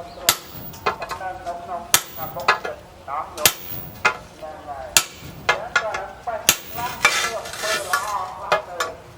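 Hammer blows on disc-plough steel, sharp metallic strikes about once a second. About seven seconds in there is a second or so of hissing.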